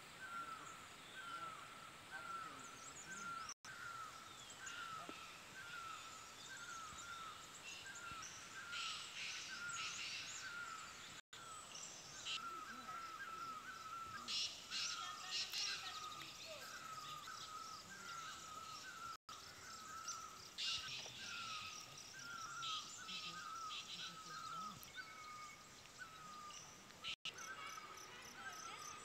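Faint woodland ambience: a short, hooked call repeated about twice a second throughout, with scattered bursts of higher bird chirping. The sound cuts out for an instant four times.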